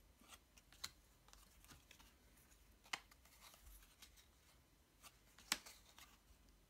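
Match Attax cardboard trading cards being handled and swapped from hand to hand: soft rustles with a few sharp card clicks, the loudest about five and a half seconds in.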